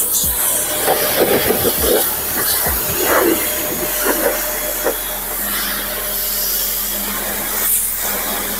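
Parkside PHD 135 E5 electric pressure washer running, its high-pressure jet hissing and spattering against a car's bodywork and windows. A low steady hum of the pump motor lies under the spray.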